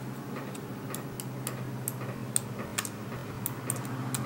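Light, irregular clicks and ticks of a small screwdriver and tiny metal parts as a very tiny screw is worked into an iPhone 6's battery connector bracket, over a steady low hum.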